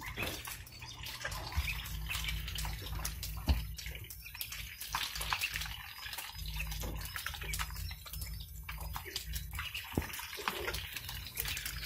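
Water splashing and dripping, with many small scattered taps and drips over a steady low rumble.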